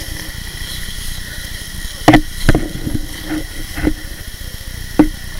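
About six sharp knocks over three seconds, the first ones loud, over a steady low rumble.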